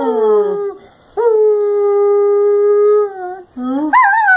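Dog howling with its head raised. A short howl dies away at the start, then comes one long, steady howl of about two seconds, and a new, rising howl begins near the end.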